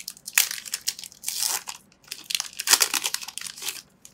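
The foil wrapper of a Pokémon TCG booster pack being torn open and crinkled in several short, irregular bursts as the cards are pulled out.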